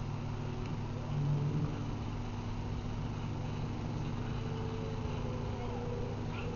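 A steady low mechanical hum, briefly a little louder just after the first second.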